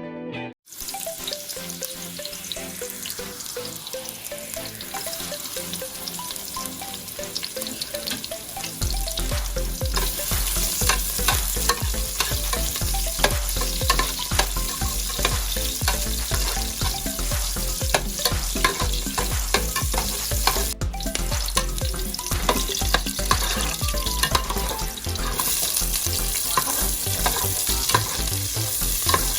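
Food frying in a hot pan, sizzling and crackling as it is stirred, getting louder about nine seconds in.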